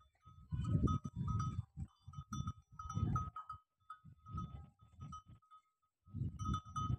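Camel calling in a run of short, low calls, with a pause about two-thirds of the way through and a steady thin ringing tone behind them.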